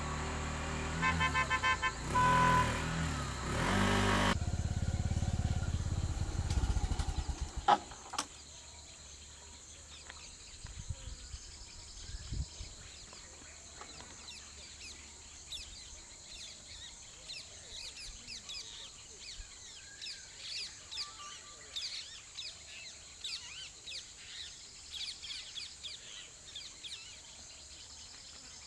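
Road vehicles, a motorcycle among them, passing close by for about the first eight seconds. After that a steady high insect drone, with birds chirping over it.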